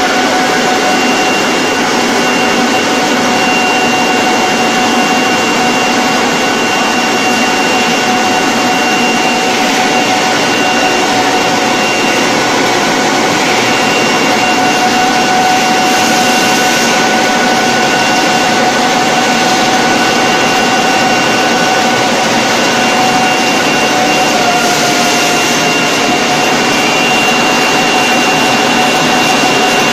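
Handkerchief pocket tissue production line running: a loud, steady machine noise with a constant high whine made of several steady tones.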